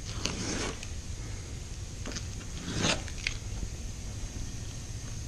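Green masking tape being peeled off a car door's freshly baked clear coat: two short ripping pulls, about half a second in and near three seconds in, with a few small clicks between, over a steady low hum.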